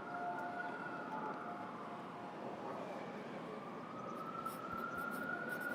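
Steady city traffic hum with a distant siren wailing slowly, its pitch falling over the first few seconds and rising again. Pencil scratches on paper come in briefly near the end.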